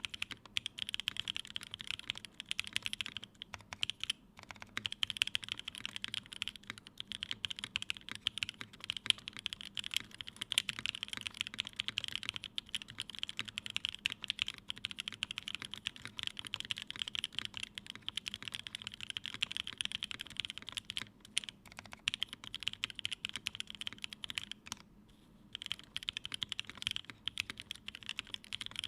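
Continuous fast typing on a Unikorn r2.1 mechanical keyboard with a polycarbonate case, aluminium plate, Creamsicle switches lubed with Krytox 205g0 and filmed, and CRP keycaps. The keystrokes run in dense streams, broken by short pauses about four seconds in and again about twenty-five seconds in.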